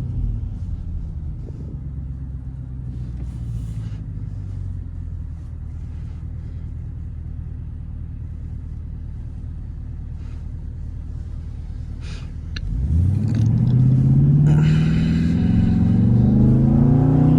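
Straight-piped Jeep Grand Cherokee SRT8 V8 exhaust: the engine note drops as the car slows, runs low and steady for about twelve seconds, then about thirteen seconds in the throttle opens hard and the exhaust gets much louder, revving up in a long rising pitch.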